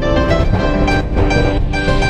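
Background music with melodic plucked notes over a steady low beat.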